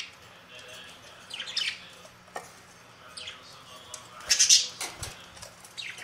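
Budgerigars making short, sharp calls with wing flutters, in bursts; the loudest burst comes about four and a half seconds in.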